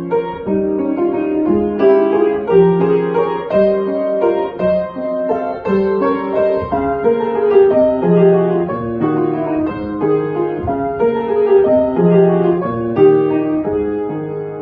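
Piano played solo: a flowing, continuous piece of overlapping melody notes and chords.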